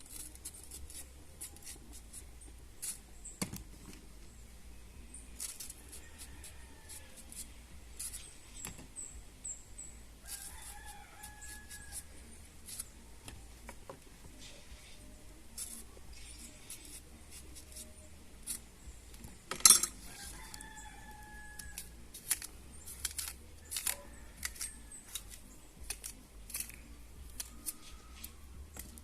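Knife clicking and scraping while green bananas are peeled by hand, with one louder knock a little past the middle. A rooster crows faintly several times.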